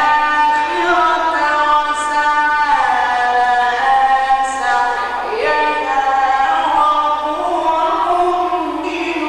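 A male reciter's solo voice in melodic mujawwad Quran recitation: long held, ornamented notes that slide between pitches, with brief breaks between phrases.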